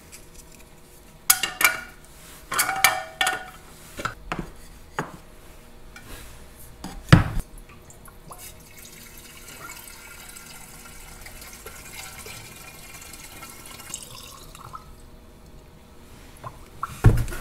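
Knocks and clinks as the small metal starting-engine fuel tank off a Farmall MD and its rubber plug are handled, with one louder thump about seven seconds in. Then fuel poured from a plastic jug through a funnel into the tank, a steady pour lasting about six seconds, as the freshly sealed tank is filled to check it for leaks.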